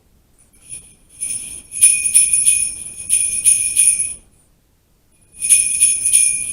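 A bell shaken in two bouts of jingling, with quick rhythmic shakes a few times a second. The first bout begins about half a second in, there is a short pause, and the second bout begins about five seconds in.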